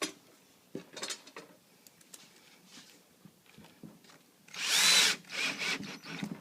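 Power drill driving a screw into a particle board drawer front. After a few light handling clicks, the drill runs briefly for about half a second around four and a half seconds in, its motor whine rising and falling, then gives a few short pulses.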